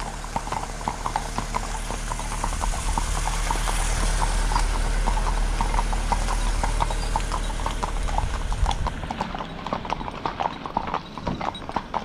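Horses' hooves clip-clopping steadily on a tarmac lane. A car drives slowly past them, its engine and tyre noise swelling and fading away between about two and nine seconds.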